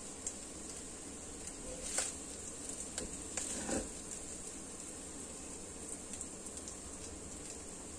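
Faint steady sizzle from the hot pan while a silicone spatula scoops minced pork with preserved vegetables onto a ceramic plate. A few light taps and scrapes stand out, one about two seconds in and a longer scrape near four seconds.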